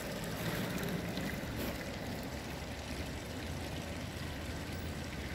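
Steady outdoor street ambience: an even hiss over a low hum, with no distinct events.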